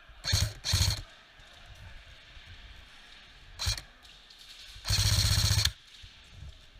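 Airsoft guns firing: two short bursts close together near the start, a brief burst past halfway, and a longer rapid-fire burst lasting almost a second near the end.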